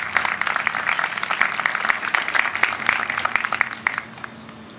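Small audience applauding, a patter of many hand claps that dies away about four seconds in.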